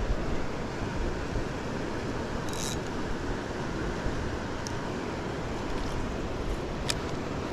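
Steady rush of river water running over rocks, with a brief high-pitched sound about two and a half seconds in and a sharp click near the end.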